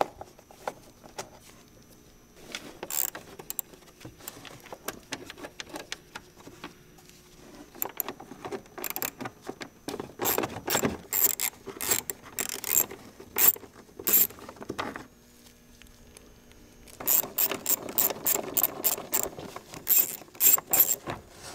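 Hand socket ratchet clicking as it turns out the radiator shroud's small bolts, in several spells of rapid clicks with short pauses between.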